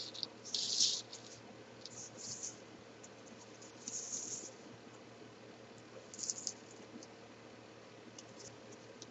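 Small cardboard jigsaw puzzle pieces being slid and flipped over on a table. They make faint scratching and clicking in a few short bursts.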